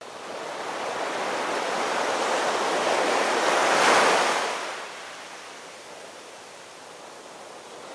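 Ocean surf: one wave swells to a peak about four seconds in and washes away, leaving a softer steady wash.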